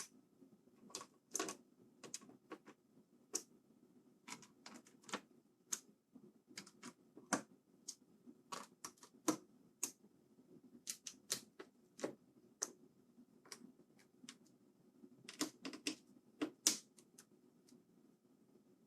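Irregular small clicks and taps of hard plastic and metal parts being handled while a mechanical keyboard is put back together, with short clusters of quick clicks between quieter gaps.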